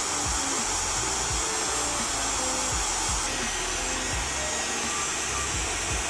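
Dyson Supersonic hair dryer running steadily on a high setting, a constant rush of blown air, as it dries wet hair at the roots against the direction of growth.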